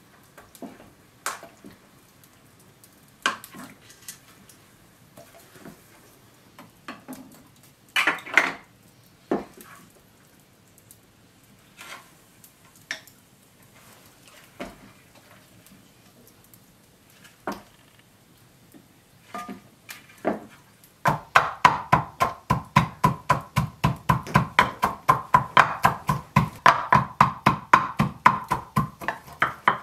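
Wooden pestle pounding walnuts in a wooden mortar: fast, even strikes about four a second that begin about two-thirds of the way in. Before that, only scattered light taps and clinks.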